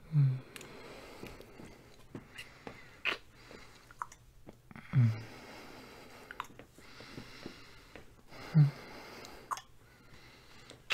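Close-miked kissing from a man: wet lip smacks and clicks, broken three times by a brief, low, loud 'mm' hum.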